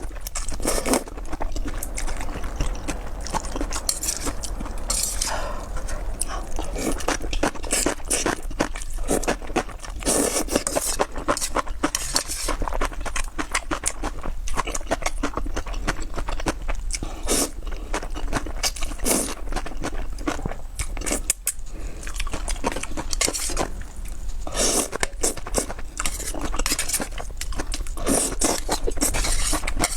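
Close-miked eating of kimchi noodles: wet chewing and crunching mouth sounds with many small clicks, one after another.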